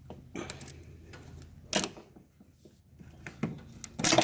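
Scattered metal clicks and clinks as a riding mower's deck hardware is handled: four short knocks, the loudest near the end, a sharp clink with a thin metallic ring.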